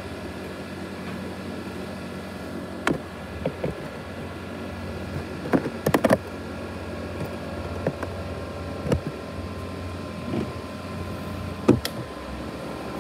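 ASUS X543UA laptop's cooling fan running steadily with a whirring, jet-engine-like hum from the broken-down machine. Several sharp knocks cut in, a cluster about six seconds in and another near the end.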